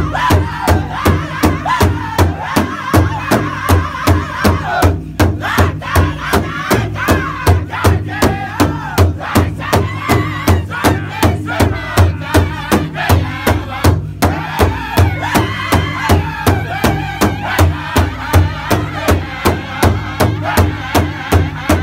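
A powwow drum group: several men striking one large powwow drum in unison with drumsticks at a steady beat of about two strokes a second, while singing together over it.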